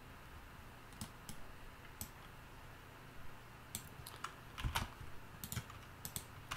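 Computer keyboard tapping: a few scattered single keystrokes, then a quicker flurry of clicks from about four seconds in, over a faint steady low hum.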